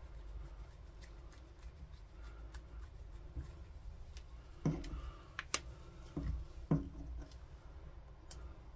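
Screwdriver tightening the cover screws on a small two-stroke strimmer carburettor: faint scraping and ticking of metal on metal, with a handful of sharp clicks and knocks a little past the middle.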